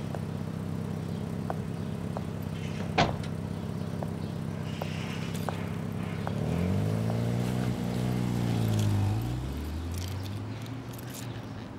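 Taxi's engine idling, with a single car-door slam about three seconds in. About six seconds in, the engine revs as the taxi pulls away, its pitch rising and then dropping, before it fades.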